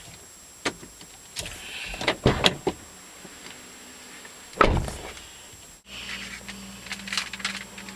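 Car door being opened from inside and pulled shut, with handle and latch clicks and one loud slam about four and a half seconds in. After that, a steady low hum with a few light clicks.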